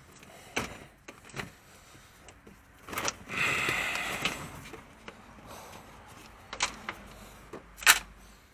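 Scattered metallic knocks of a mallet and pry bar working loose a rubber sway bar bushing that has seized to the rusted sway bar, with about a second of scraping just after three seconds in and the loudest knock near the end.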